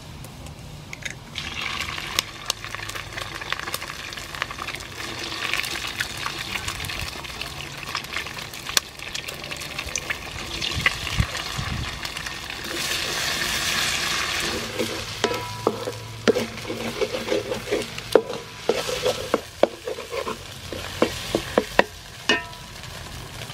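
Eggs sizzling as they fry in hot oil and chopped garlic in a steel wok; the sizzling starts about a second in. In the second half a wooden spatula scrapes and knocks against the wok as the eggs are stirred and scrambled.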